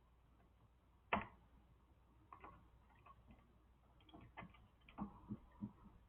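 Faint, scattered clicks and light taps of small electrical parts being handled while a wire is fastened to a light switch terminal. There is one sharper click about a second in and a cluster of lighter ticks near the end.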